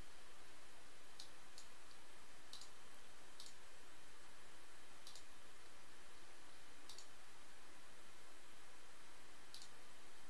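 Light, sharp clicks, about seven in ten seconds at uneven spacing, over a steady hiss of room noise.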